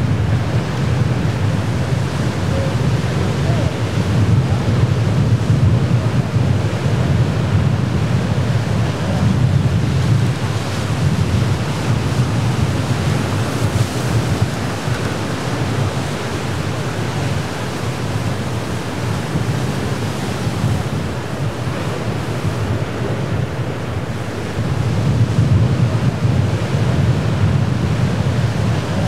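Surf breaking and washing over jetty rocks, with wind buffeting the microphone in a steady low rumble that swells and eases.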